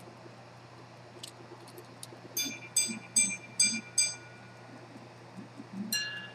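Minute repeater of a century-old pocket watch chiming on its gongs: five even, bell-like strikes, then after a short pause a single strike of a different pitch. Two faint clicks come just before the chiming.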